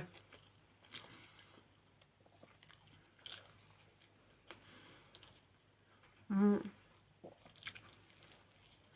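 Close-miked chewing and biting of food: faint, scattered wet mouth clicks and crunches. About six seconds in comes a brief voiced hum or vocal sound.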